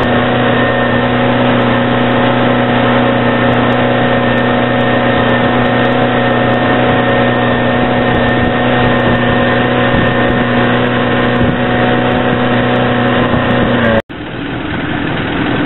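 Tow boat's engine running at a steady speed, a constant drone with a fixed pitch. About fourteen seconds in it cuts off abruptly, then comes back quieter and rougher.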